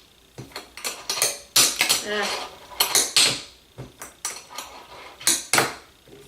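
Wooden fingerboard with Blackriver trucks and FlatFace wheels being flicked and landed on a hard surface during trick attempts: a quick, irregular string of a dozen or so sharp clacks, with short stretches of wheels rolling between them.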